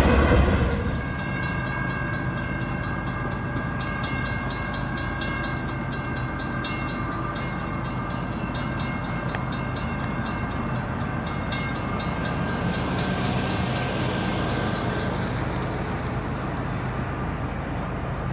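Railroad grade-crossing bells ringing in a steady rhythm over the low rumble of an approaching train. The bells stop about twelve seconds in.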